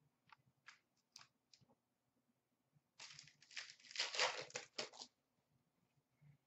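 A 2008-09 Upper Deck Series 1 hockey card pack wrapper being torn open and crinkled for about two seconds, a few light clicks of cards being handled before it.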